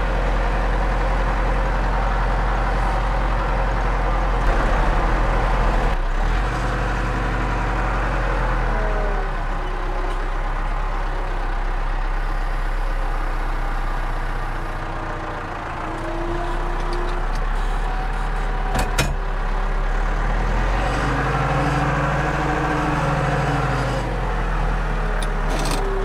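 Tractor engine running, heard from inside the cab, its pitch rising and falling several times as the front loader works round bales. Two sharp knocks, one a little past the middle and one near the end.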